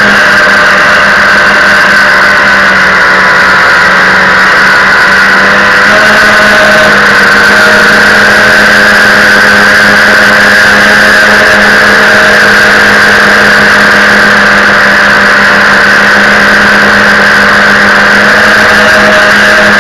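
FPV racing quadcopter's electric motors and propellers whirring steadily, heard through its onboard camera, with slight shifts in pitch as the throttle changes.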